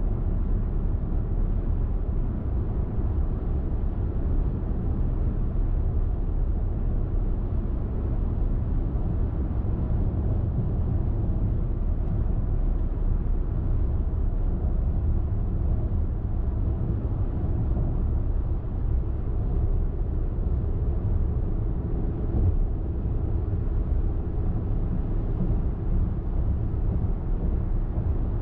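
Car driving at highway speed: a steady low rumble of tyre and engine noise.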